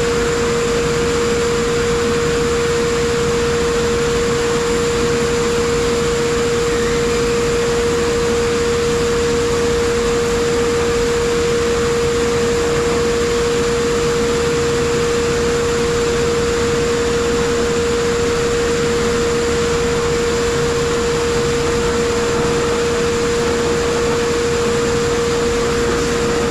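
Pressure blast cabinet nozzle blasting aluminum oxide at about 85 PSI: a steady, unbroken hiss of air and grit, with a steady tone running under it.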